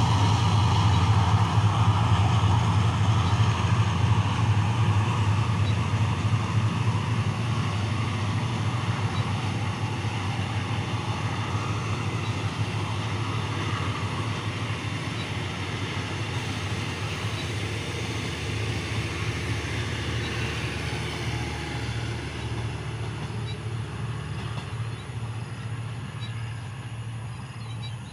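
Passenger train's coaches rolling away on the rails, a steady low hum under the running noise, fading steadily as the train recedes.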